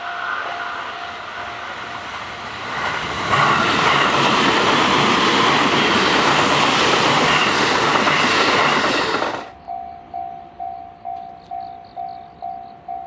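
Japanese level crossing bell ringing in steady pulses, about two a second, while a JR West electric train approaches and passes at speed. The train's noise swells and drowns the bell for several seconds, then cuts off suddenly near the end, leaving the crossing bell ringing on.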